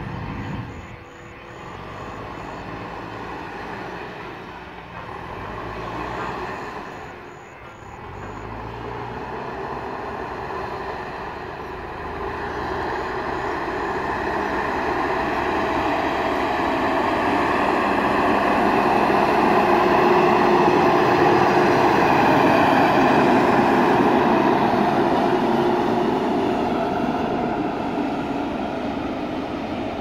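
JCB 3DX backhoe loader's diesel engine working under load as its front bucket pushes and levels soil. It grows louder as the machine comes closer, is loudest about two-thirds of the way through, then eases off.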